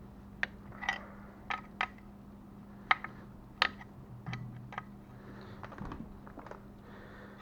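Scattered short metallic clicks and taps, about ten, irregularly spaced, from hand tools and bolts handled while working on a motorcycle engine's top end, over a steady faint hum.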